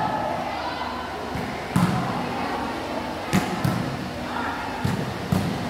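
Ball game on an indoor court: five sharp thuds of a ball being struck or bouncing, spread irregularly, over a background of players' voices.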